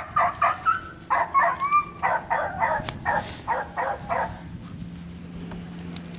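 Three-month-old Malinois puppy yapping in a quick string of short, high-pitched barks and yips, about three a second, stopping after about four seconds.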